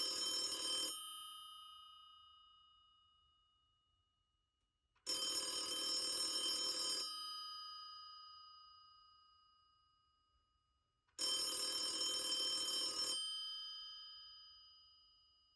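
Telephone bell ringing in bursts of about two seconds: one ring ends about a second in, then two more follow about six seconds apart, each dying away slowly after it stops.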